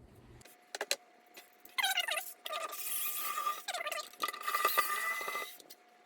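Cordless drill-driver running in two short bursts, each opening with a falling whine and then holding a steady whine, as it backs out the square-drive screws that hold the motor controller. A few light clicks come just before the first burst.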